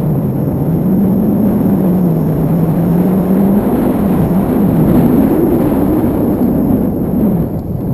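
Wind rushing steadily over the microphone of a handheld camera in tandem paraglider flight, with a low tone that wavers slowly up and down.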